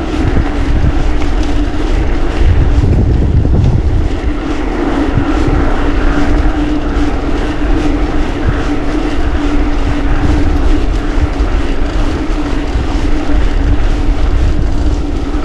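Wind rushing over the microphone of a mountain biker's chest-mounted camera while riding, with a low rumble and a steady hum from the bike's rolling tyres that grows louder in the middle.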